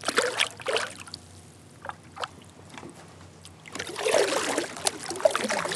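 Water splashing beside a kayak as a smallmouth bass is let go and kicks away, then about four seconds in a longer stretch of water splashing and sloshing along the kayak.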